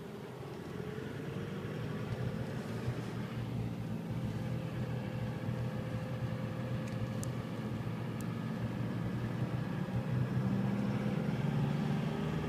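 Car engine and tyre noise heard from inside a moving car: a steady hum whose pitch rises slowly and which grows louder toward the end as the car speeds up. Two faint clicks come about seven and eight seconds in.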